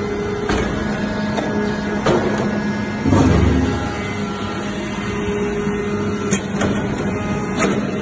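Hydraulic briquetting press for stainless steel chips running: its hydraulic power unit hums steadily, with scattered sharp clicks and knocks and a heavier low rumble lasting about half a second about three seconds in.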